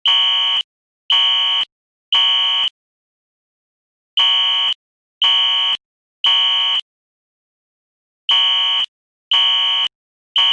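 Fire alarm sounding the temporal-three evacuation pattern. Three high-pitched buzzy beeps of about half a second each, then a pause of about a second and a half, repeating three times.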